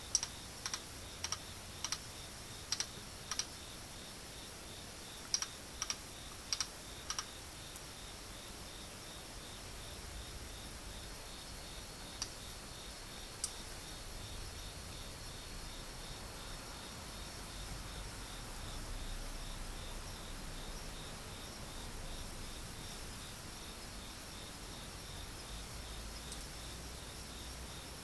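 Xiphidiopsis subpunctata katydid calling, its ultrasonic song near 50 kHz shifted down to an audible pitch: a run of short sharp chirps, about ten in the first seven seconds and often in pairs, then only a few scattered ones. Heard directly by ear, the call is a small "chit".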